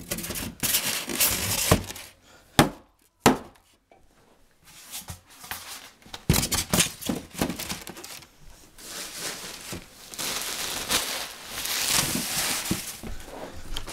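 Styrofoam packing and a plastic bag being handled in a cardboard box: irregular rustling, scraping and crinkling, with two sharp knocks between about two and three and a half seconds in.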